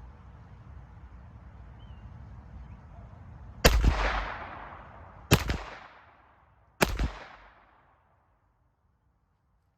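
Three unsuppressed gunshots from a Ruger Mark IV 22/45 Lite .22 LR pistol firing CCI Mini-Mag high-velocity rounds, about a second and a half apart, each followed by an echoing tail. The shots peaked at 111.2 decibels on a sound meter.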